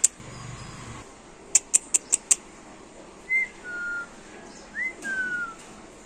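Alexandrine parakeet making five quick, sharp, high chirps, then four short whistles, some held level and some gliding down in pitch.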